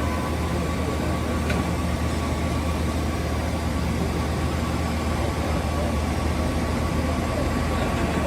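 2006 Okuma Macturn 550-W CNC turning/milling center running with a steady low hum and a steady high whine, with one faint click about a second and a half in.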